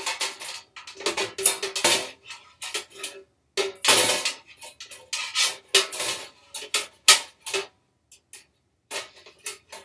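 Metal air fryer accessories clinking and clattering as they are handled, a run of short irregular knocks, some leaving a brief metallic ring.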